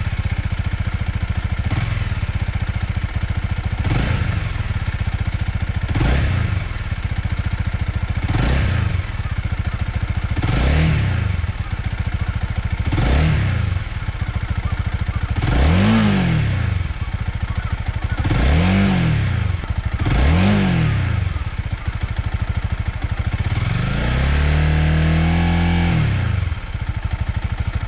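Honda Rebel 250's single-cylinder engine idling at about 1,400 rpm and revved in a string of short throttle blips, each rising and falling back to idle, the later ones going higher. Near the end it is held at higher revs for a couple of seconds before dropping back to idle.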